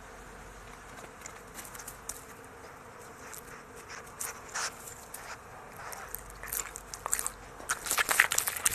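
Stray cat eating food in quick, eager bites, with irregular crunching and chewing clicks that grow faster and louder toward the end.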